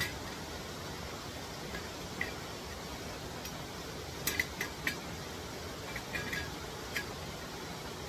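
Stainless-steel parts of a small wood-burning gasifier stove clinking lightly against each other as they are handled and fitted together: a few sharp metallic clinks, a quick cluster around the middle and a few more near the end. Under them runs a steady rush of falling water.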